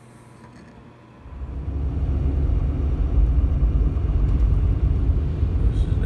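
Faint room tone for about the first second, then a sudden switch to a steady low rumble of a car driving on a snow-covered road, heard from inside the cabin.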